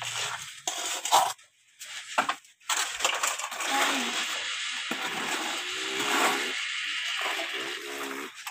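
Dry sand being poured and scraped by hand against a plastic toy dump truck. It makes a steady gritty hiss that sets in about two and a half seconds in and lasts until near the end.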